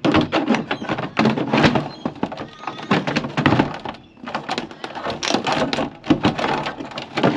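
Rapid, irregular knocks and clatter, like tools and materials being handled and struck during building work.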